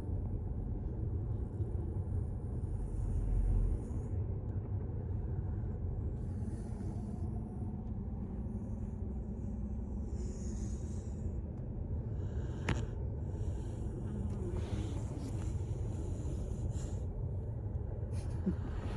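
Dog snoring: a steady low rumble, with one sharp click about two-thirds of the way through.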